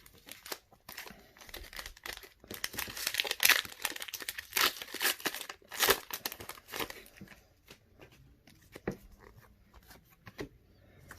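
Foil Pokémon card booster pack being torn open and crinkled: a dense run of sharp crackles and tearing rustles for about six seconds, then a few quieter rustles as the cards are handled.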